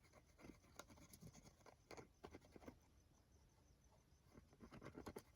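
Faint rustling and scattered light taps of paper being handled while a paper nameplate is glued onto a journal.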